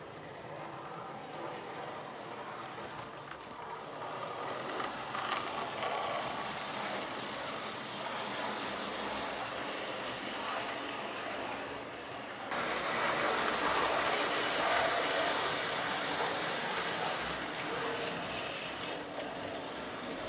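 Model train running on the track: the wheels of the locomotive and coal wagons rattle over the rails and the loco's motor whirrs steadily. It gets louder about two-thirds of the way through.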